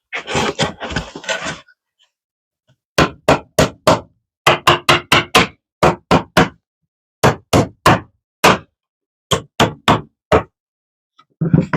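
Hand-tool work on wood: a short stretch of rough scraping, then about two dozen sharp hammer blows on wood in quick groups of several strikes each, ending with a heavier thump.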